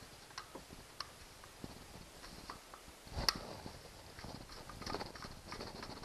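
Screwdriver driving a screw into a black plastic fishfinder mounting bracket: scattered light clicks and knocks of the tool and plastic parts, with one sharper click about three seconds in.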